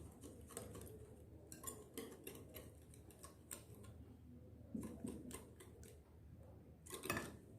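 Faint, irregular clicking of a utensil against a bowl as eggs and sugar are beaten by hand, a few clicks a second, with a louder cluster near the end.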